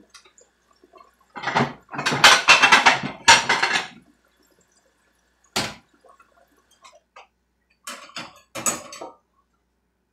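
Dishes being hand-washed at a stainless steel sink: bursts of splashing and clattering, loudest from about one and a half to four seconds in, then a single sharp knock and a few more clinks near the end.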